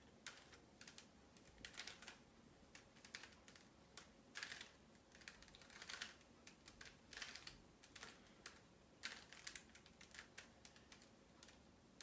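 Faint plastic clicks and clacks of a 3x3 Rubik's cube's layers being turned by hand, coming singly and in quick irregular runs.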